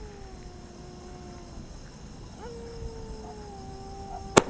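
Crickets chirping steadily at night, with two long, faint tones that each slide slowly down in pitch, and a single sharp crack near the end.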